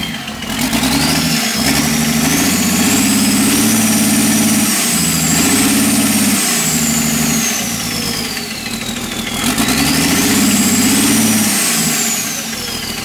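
Sisu 84CTA six-cylinder diesel engine of a generator set revving up from idle under control of the panel's speed potentiometer, holding high revs for a few seconds and slowly dropping back, then revving up and falling again about ten seconds in: the new control unit answers the throttle.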